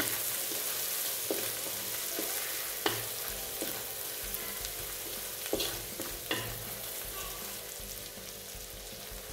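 Pounded spice paste sizzling in hot oil in a wok as it is stirred, with short scrapes and knocks of the stirring utensil against the pan every second or so. The paste is being fried until crisp and fragrant. The sizzle grows slowly quieter.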